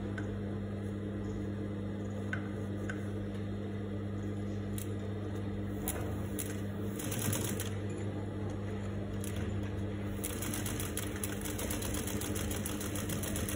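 Juki industrial lockstitch sewing machine stitching a seam, over a steady low hum. A few single clicks come first, then a short burst of rapid stitching about seven seconds in, and a steady run of stitching over the last few seconds.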